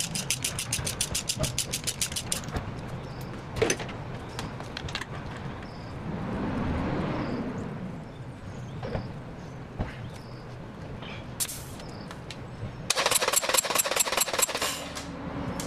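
A ratchet wrench clicking rapidly for the first couple of seconds as a spark plug is turned out of a Honda B18C1 four-cylinder engine, then a few scattered tool clicks. Near the end the engine is cranked over on its starter for about two seconds during a compression test of a cylinder that reads 0 psi.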